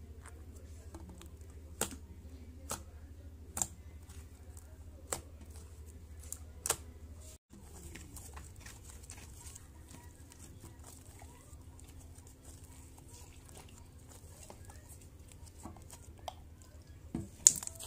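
Shampoo glitter slime being stretched and squeezed by hand, giving scattered sharp sticky clicks and pops: about five in the first seven seconds, a faint crackle after that, and a few louder ones near the end. A low steady hum runs underneath.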